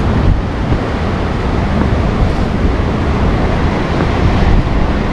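Strong gusting wind buffeting the microphone, over the steady wash of rough sea surf breaking on the shore after a storm.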